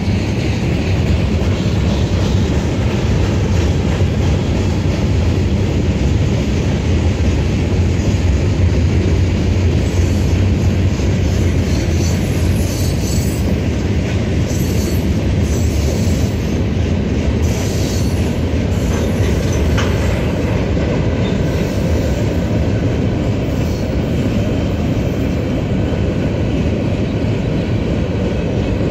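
Mixed freight train of covered hopper cars rolling past, a steady rumble of wheels on rail. Intermittent high wheel squeals come in around the middle.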